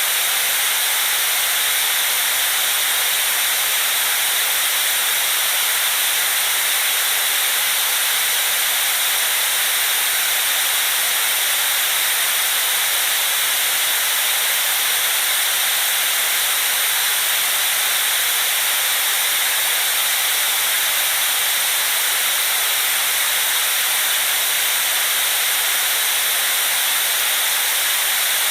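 White noise used as a baby sleep aid: a steady, unchanging hiss, bright and with little bass.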